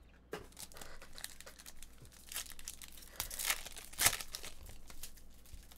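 Plastic foil trading-card pack wrappers crinkling and tearing as packs are ripped open and the cards handled, in irregular crackles with a sharper snap about four seconds in.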